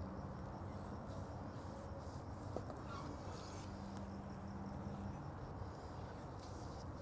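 Quiet background: a low steady hum that stops about five seconds in, with faint scattered high ticks and one soft click about two and a half seconds in.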